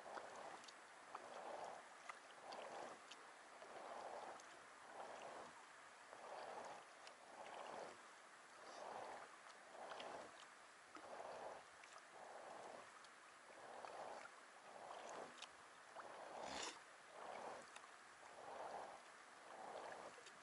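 Faint, steady kayak paddling: the blades of a double-bladed paddle swishing through sea water about once a second, with small drips and clicks between strokes and one sharper click about two-thirds of the way through.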